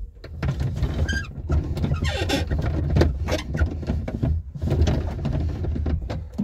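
Three-cylinder engine of a Daewoo Matiz fitted with a belt-driven supercharger, idling with a steady low drone heard from inside the cabin. The drone comes up to full level about half a second in. Irregular rustling and clatter sit on top of it.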